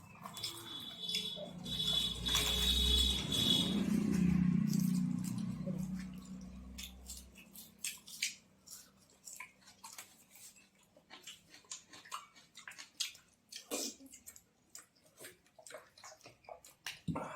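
People eating with their mouths, chewing and smacking in short, irregular clicks. For the first several seconds a louder low rumble, carrying a thin high tone, swells and then fades out.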